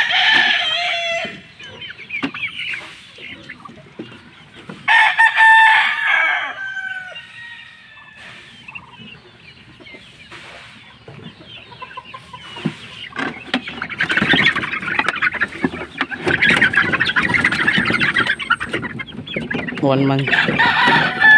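A flock of free-range chickens clucking and calling, with loud drawn-out calls right at the start and again about five seconds in, then a quieter spell before busy overlapping clucking picks up in the second half.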